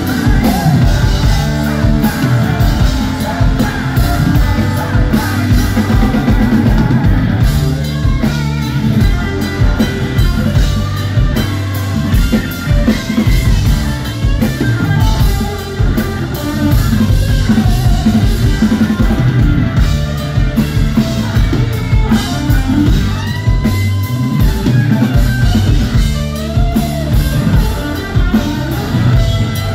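Live rock band playing loud through a club PA, with a drum kit, electric guitars, bass and singing, heard from the audience.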